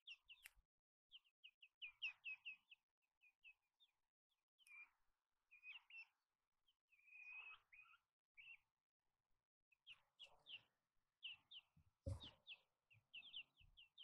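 Young hens peeping in faint short high chirps that come in quick runs, with soft rustling as they peck. A sharp knock about twelve seconds in is the loudest sound.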